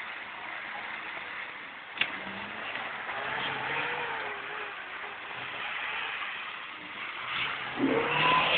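Lada Niva's engine working under load as the 4x4 climbs out of a muddy creek bed, its pitch wavering up and down with the throttle. A sharp knock sounds about two seconds in, and the engine grows louder near the end.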